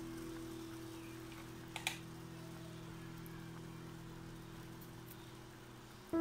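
Faint steady hum from the cooktop under a simmering pot, several low tones held together, with a quick double click about two seconds in.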